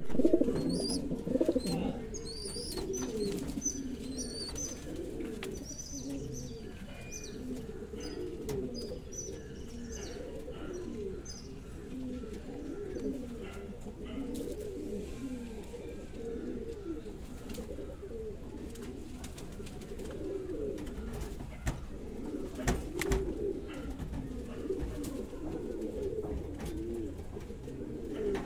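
Homing pigeons cooing, a continuous run of low, rolling coos from a courting pair. Small birds chirp high in the background during the first few seconds.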